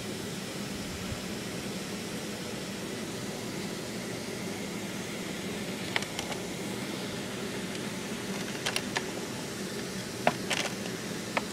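A steady mechanical hum with hiss, with a few light clicks and taps from about six seconds in, more of them near the end.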